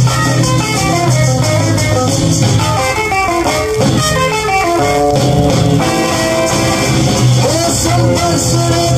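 A 45 rpm vinyl single playing on a turntable: a guitar-led passage of the record, with quick runs of notes over a steady bass line.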